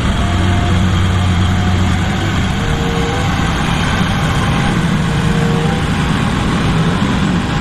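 The diesel engine of a Komatsu HD1500 mining haul truck running steadily as the truck rolls slowly past, a low-pitched drone.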